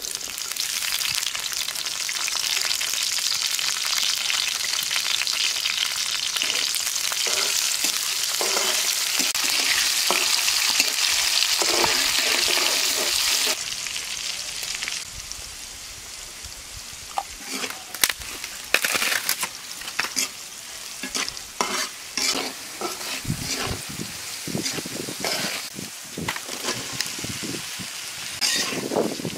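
Green chilies hitting hot oil in an iron karahi, sizzling loudly and steadily. After a sudden drop about halfway through, the oil fries more quietly, with frequent sharp clicks and scrapes of utensils on the pan, and these grow busier near the end.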